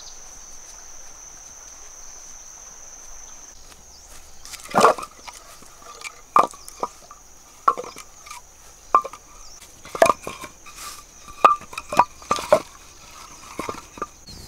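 Cut wooden logs knocking against each other as they are set down and stacked by hand, about ten sharp knocks, some with a short ring, starting about five seconds in. A steady high insect drone runs underneath.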